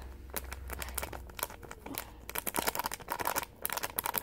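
Thin plastic sachet of slime powder crinkling as it is squeezed and shaken out over the mouth of a jar: quick runs of sharp crackles, thickest in the second half.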